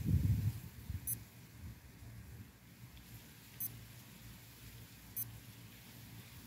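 Armitron digital chronograph wristwatch giving three short, high-pitched beeps as its buttons are pressed to step through its display modes. A brief low rumble comes right at the start.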